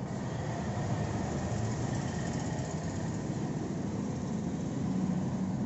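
Tractor diesel engine idling steadily, an even low running sound.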